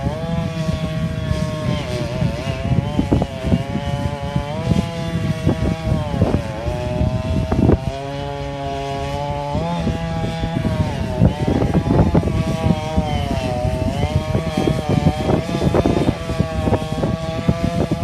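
Two-stroke chainsaw running at high revs while cutting a large tree, its pitch sagging and recovering again and again as the chain bogs under load, with scattered knocks of wood.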